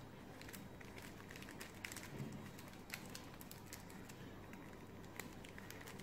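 Folded paper being handled and creased by hand: faint, scattered crinkles and ticks.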